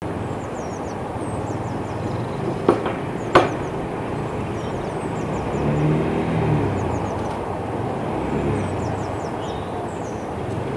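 Outdoor ambience: a steady rumble of road traffic with a vehicle passing about halfway through, birds chirping high above it, and two sharp knocks close together about three seconds in.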